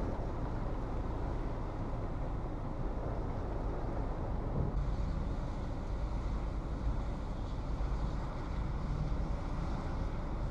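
Hurricane wind buffeting the microphone with wind-driven rain: a steady, heavy rush with a deep rumble, with a little more hiss from about five seconds in.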